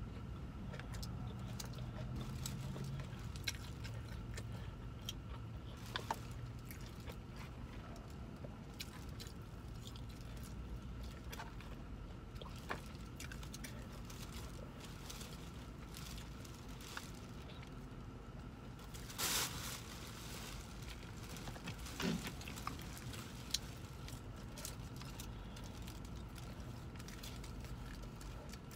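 Quiet chewing and crunching of fried fish and chips, with scattered small clicks and a short louder crackle about two-thirds through. Under it is the steady low hum of the parked car's engine and air conditioner.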